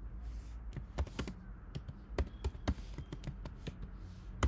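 Typing on a computer keyboard: irregular single keystrokes, with a sharper one near the end, over a low steady hum.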